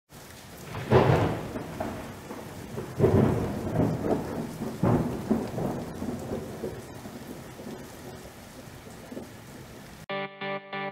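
Rain falling steadily with three rolls of thunder, about one, three and five seconds in, each swelling and dying away. Near the end it cuts off suddenly and pulsing music begins.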